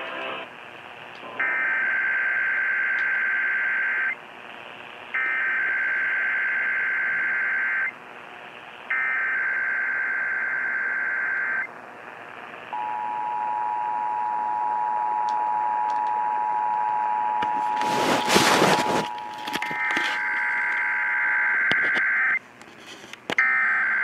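Emergency Alert System tones from an FM radio speaker for a Required Monthly Test. First come three warbling digital SAME header bursts with short gaps, then the steady two-tone EAS attention signal held for about nine seconds, with a loud burst of noise partway through. Near the end, another run of SAME header bursts begins.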